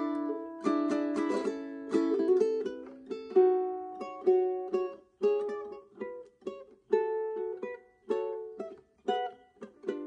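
Solo Purity ukulele played fingerstyle: an instrumental melody of plucked single notes over chords, each note ringing and fading. A quick run of strokes fills the first couple of seconds before the melody thins out.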